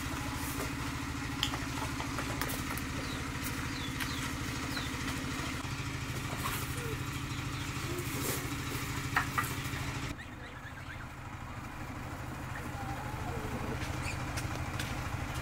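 A small engine running steadily with an even, rapid pulse.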